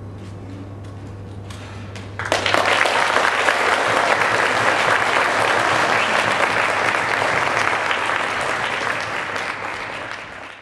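Audience applauding, breaking out suddenly about two seconds in and thinning out near the end.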